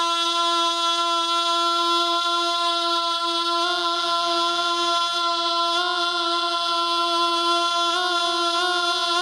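Male naat reciter singing unaccompanied into a microphone, holding one long note steady. About four seconds in, a lower tone joins beneath the voice, and near the end the note wavers in vocal ornament.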